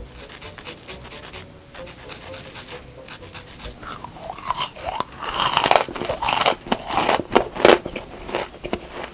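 Crisp blue meringue cookies rubbed and crushed between fingertips close to the microphone, a dry scratching sound. About four seconds in they are bitten, then crunched and chewed in the mouth, with crisp crackles growing louder.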